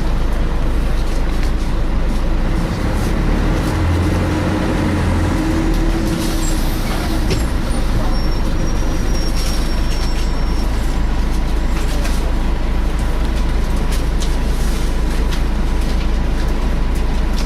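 Scania L113 single-deck bus heard from inside while under way: steady diesel engine and road rumble with the cooling fan running, a steady thin whine over the top.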